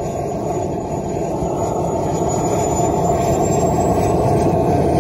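Twin model jet turbines of a BVM F-18 radio-controlled jet running: a thin high whine rising slowly in pitch over a steady rushing exhaust that grows gradually louder as the engines spool up.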